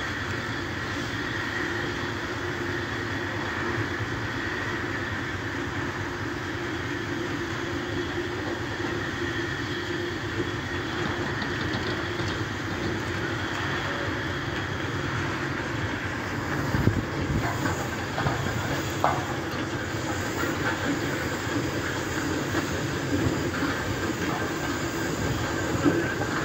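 Steam locomotive moving slowly through a station yard: a steady hiss of steam, with a few sharp knocks about two-thirds of the way through.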